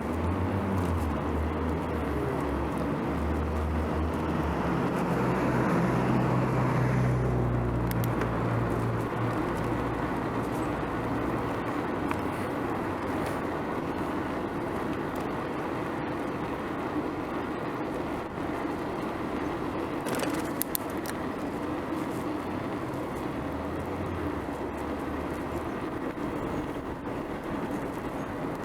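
Wind buffeting the microphone during a bicycle ride, a low rumble that is heaviest for the first seven seconds or so and returns briefly near the end, over a steady haze of road and traffic noise.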